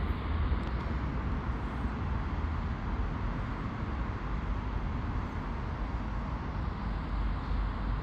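Steady low rumble of background road traffic.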